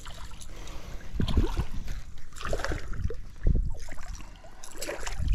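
Water splashing as a hooked largemouth bass thrashes at the surface beside the boat, with irregular low thumps of wind and handling on the microphone.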